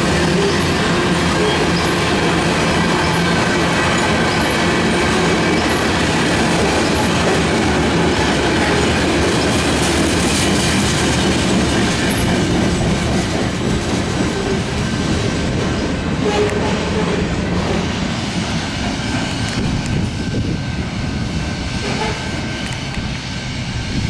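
Canadian National freight train's cars rolling past on the rails, a steady loud rumble and clatter of wheels on track that eases slightly in the second half.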